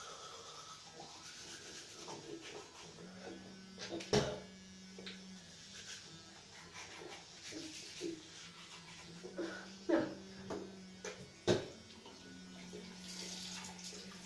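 Teeth being brushed with an electric toothbrush: a low steady buzz that comes and goes, with a few sharp knocks.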